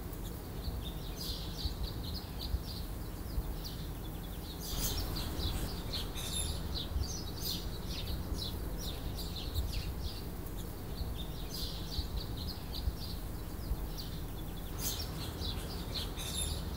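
Small birds chirping in the background in repeated groups of short high twitters, over a low steady hum, with a couple of faint sharp clicks.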